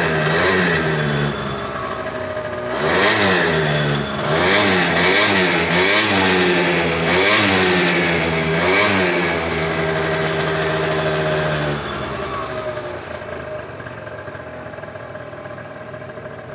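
Derbi Atlantis 50's hot two-stroke 50cc engine on its standard exhaust, blipped up and down in a run of quick revs, then held at steady revs before dropping back to a quieter idle about twelve seconds in. The rear wheel spins free on the centre stand.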